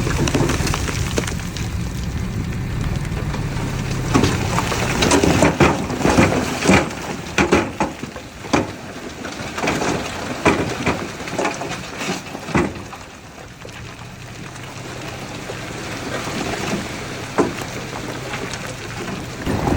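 Heavy earthmoving machinery's diesel engine running as a low drone, easing off in the middle while a string of sharp clanks and knocks sounds, then building again near the end.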